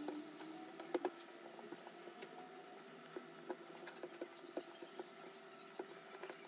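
Soft taps and pats of hands and tapioca-starch dough on a countertop, with one sharper knock about a second in, over a faint steady hum.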